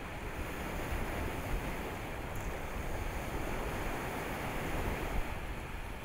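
Steady rushing ambience: an even noise with a deep low rumble, swelling slightly about five seconds in.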